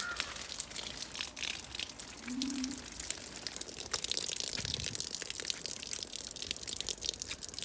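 Steady rain falling, a constant hiss with dense ticks of single drops striking close to the microphone.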